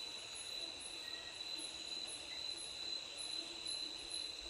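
Night insects, crickets among them, calling steadily: a continuous high shrill trill with a fainter, higher chirp pulsing about twice a second.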